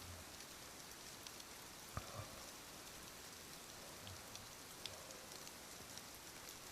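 Faint steady rain, an even hiss dotted with small drop ticks, with a few soft low thuds about two and four seconds in. A sleeper's low snore trails off right at the start.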